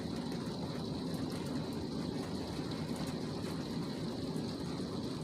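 Heavy rain pouring down in a downpour: a dense, steady rush with faint scattered ticks of drops.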